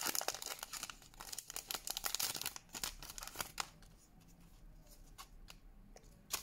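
Foil wrapper of a Pokémon TCG booster pack crinkling and tearing as the cards are drawn out, for about three and a half seconds, followed by quieter handling of the cards.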